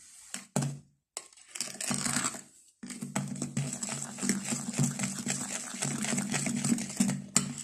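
Wooden spoon stirring flour into a wet batter in a glass bowl: irregular scraping and scratching of the spoon against the glass, with brief pauses. A steady low hum runs underneath for most of it.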